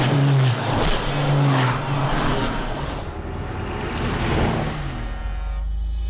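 Racing trucks' diesel engines running hard as they pass at speed over the first few seconds, then a deep low rumble swells near the end.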